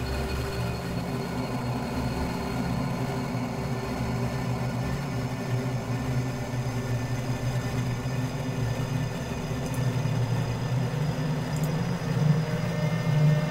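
Experimental drone soundtrack: a steady, dense mass of held tones over a deep hum, with no beat, swelling a little in the low end near the end.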